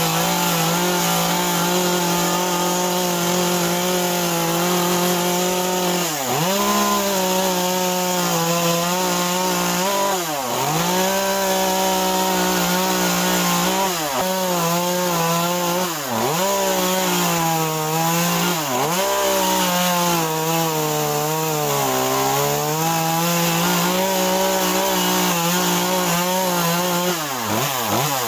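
Small two-stroke top-handle carving chainsaw running at high revs while cutting into a block of wood. Its pitch dips sharply and recovers every two to four seconds.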